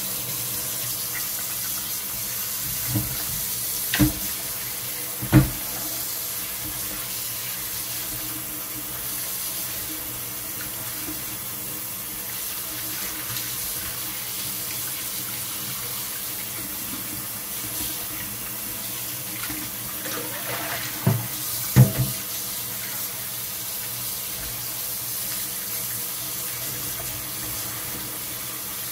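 Kitchen faucet running steadily into a glass bowl of water in a stainless-steel sink while wheat dough is washed of its starch to make seitan. A few short knocks come through, two about four and five seconds in and two more about twenty-one seconds in.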